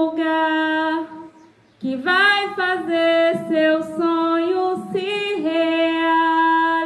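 A woman sings a slow song in Portuguese into a handheld microphone, holding long notes, with a short pause for breath about a second and a half in.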